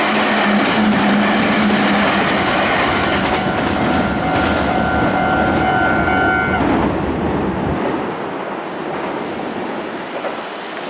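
Meitetsu electric train passing the level crossing at speed, its wheels clattering over the rail joints. A steady high tone sounds through the middle and cuts off about six and a half seconds in. The noise then fades as the train draws away.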